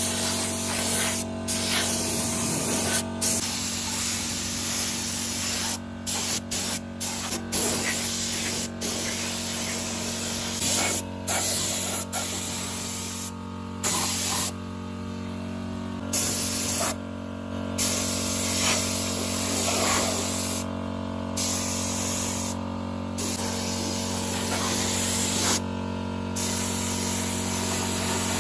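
Pressurised spraying: a strong hiss that cuts out for short gaps every second or two as the spray is stopped and started, over a steady motor hum.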